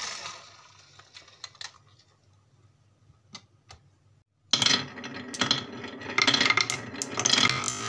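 A few light clicks and knocks, then from about halfway a loud, continuous clatter of marbles rolling and knocking around a wooden funnel bowl on a marble run.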